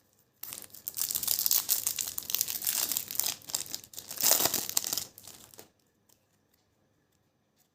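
Foil wrapper of a trading card pack crinkling and tearing as it is opened, loudest a little past four seconds in, then stopping about two seconds before the end.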